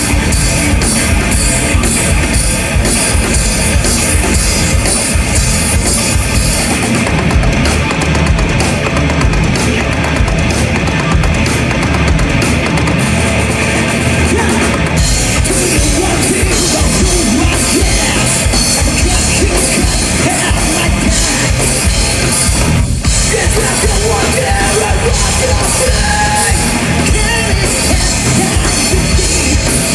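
Heavy metal band playing live at full volume: electric guitars through stacked amps, bass and drum kit, with a momentary break in the music partway through.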